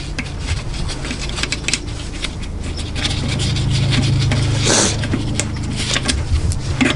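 Metal clicks and scrapes of a Honda Prelude manual transmission's gear stack and case being handled during teardown, over a steady low hum, with a louder scrape about four and a half seconds in.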